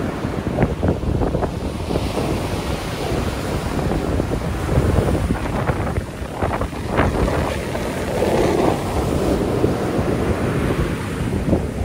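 Surf washing onto a sandy beach, with wind buffeting the microphone.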